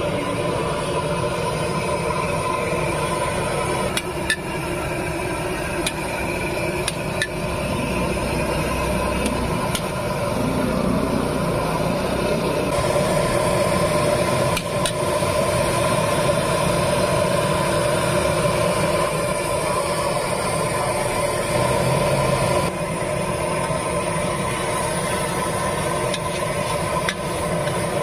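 Noodles stir-frying in a large steel wok over a gas burner: a steady rushing and sizzling, with a metal spatula scraping and clicking against the wok every few seconds.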